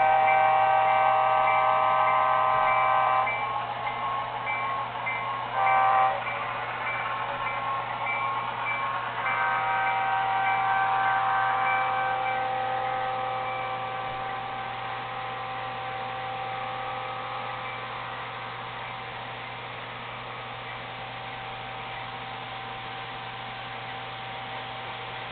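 HO-scale model diesel locomotive's DCC sound decoder sounding a multi-chime air horn through its small speaker. It gives a long blast ending about three seconds in, a short toot near six seconds, then another long blast from about nine seconds that slowly fades. A steady low hum runs underneath.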